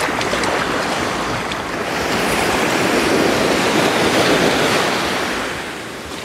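Surf breaking and washing up a sandy beach, swelling about two seconds in and ebbing toward the end.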